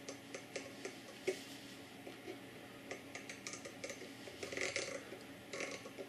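A 16-detent rotary encoder turned by hand through a plastic pen-lid knob, its detents giving a quick run of faint, irregular clicks that are busiest a little before the end. Each click is one step of the encoder's count.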